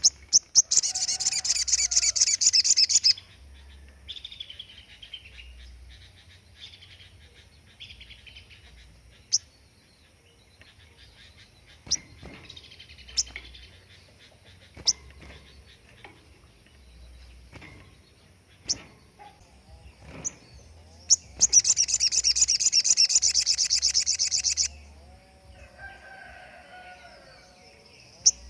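A sogon songbird singing its 'tembakan': a shrill, very rapid trilled burst of about three seconds, given twice, once near the start and again about 21 seconds in, with scattered short chirps and clicks between.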